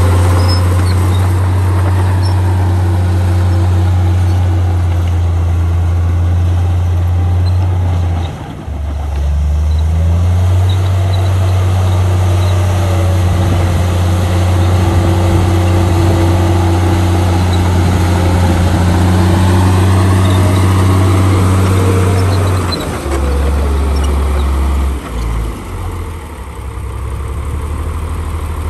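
Komatsu crawler bulldozer's diesel engine running as it pushes a load of soil, a deep steady drone. It dips briefly about eight seconds in, then falls lower and unsteady near the end.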